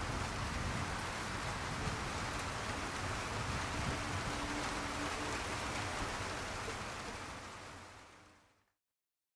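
Steady rain falling, an even hiss with a faint low hum under it, fading out about eight seconds in to silence.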